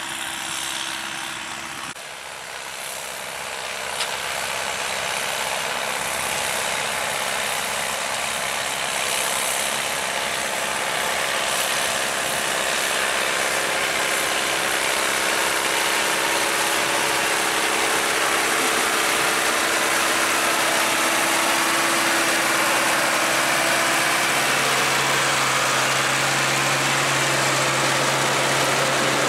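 Vintage tractor engine running steadily under a broad rushing noise that slowly grows louder; the engine's hum drops in pitch near the end.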